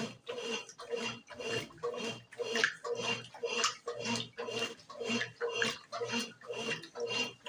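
Brastemp BWG11 11 kg washing machine agitating its load, water and laundry sloshing in an even rhythm of about two swishes a second.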